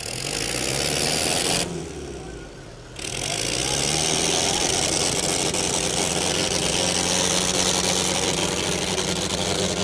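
Tractor engine revved hard under the load of a tractor tug-of-war pull: its pitch climbs, drops back abruptly about a second and a half in, then opens up again about three seconds in and runs steadily at full throttle.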